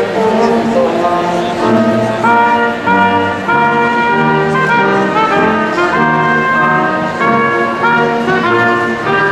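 Brass ensemble playing slow processional music: several instruments holding chords that move step by step, each note held about half a second to a second.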